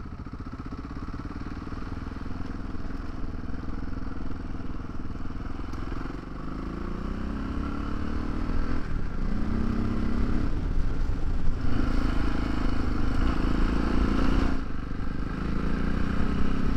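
Adventure motorcycle's engine running under way on a dirt trail. From about six seconds in, the throttle opens and the engine note rises and dips several times, getting louder.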